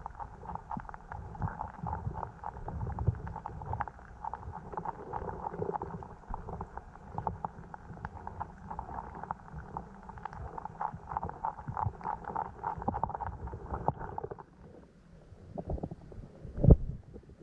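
Stream water running with a low, crackling rush that drops away sharply about fourteen seconds in, followed by a single loud knock near the end.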